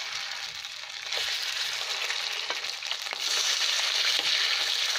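Chicken pieces marinated in oyster sauce and cornflour frying in hot oil in a frying pan, a dense sizzle that grows louder about a second in and again about three seconds in as more pieces go into the oil. A few light clicks of the spoon against the pan.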